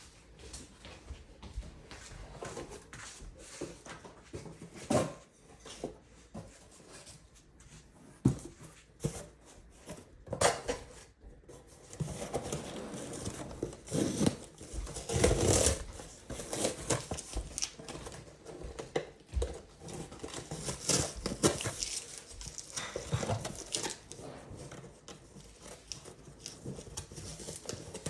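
Hands packing a shipping order: bottles and containers set down and shifted with knocks and clinks, and packaging rustling and crinkling. The handling grows busier and louder about halfway through.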